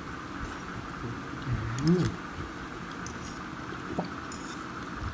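Light clinks of utensils against dishes, with a brief rising hum from a person's voice about two seconds in, over a steady background hiss.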